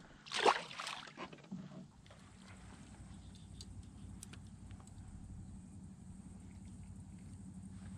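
A largemouth bass released back into the lake with a short splash about half a second in. A steady low hum follows, with a few faint ticks.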